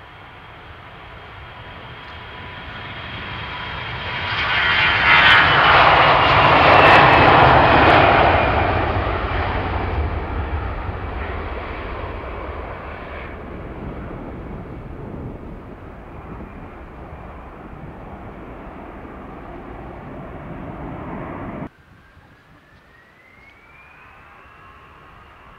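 Jet engines of an Airbus A320-family airliner at takeoff power as it rolls past and lifts off: the noise swells to a loud peak about five seconds in, with a whine falling in pitch as it passes, then slowly fades. Near the end the sound cuts off suddenly and a quieter jet whine rises in pitch and then holds steady.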